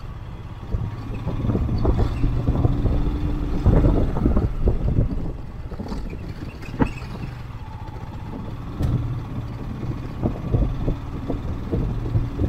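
Motorcycle riding a rough, broken mountain road: the engine's low, steady running, with scattered knocks and rattles from the bike over the uneven surface. The sharpest knock comes about seven seconds in.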